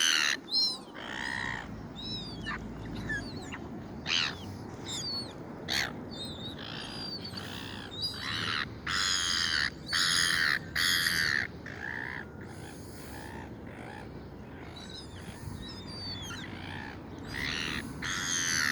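Several gulls calling harshly again and again, a mix of short squawks and longer drawn-out calls, with loud runs of calls about halfway through and near the end, over a steady low background rumble.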